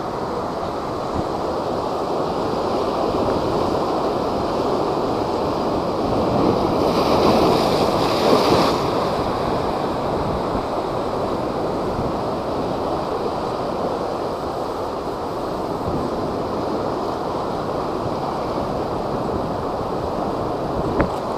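Typhoon-driven high waves surging and breaking, a steady rushing wash with wind. About seven seconds in it swells louder and brighter for a couple of seconds, as a bigger wave breaks.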